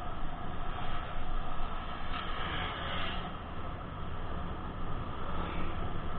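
Steady rushing road and wind noise from a vehicle moving along wet asphalt, picked up by an onboard camera. The noise swells briefly about two to three seconds in.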